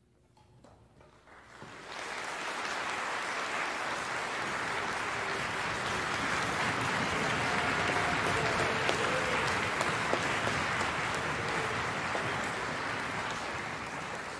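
Concert-hall audience applauding after an orchestral piece ends, swelling in about two seconds in, holding steady, then dying away near the end.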